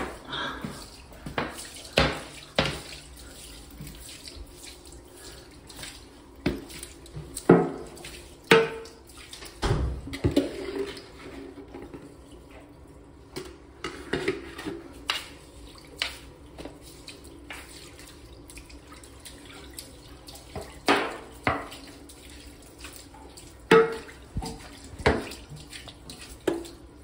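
Water sloshing and trickling during a toilet repair, with irregular knocks and clatters of parts being handled.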